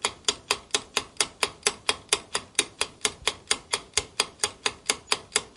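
Clock-style countdown timer sound effect ticking steadily, about four sharp ticks a second, marking the seconds running out to answer the quiz round.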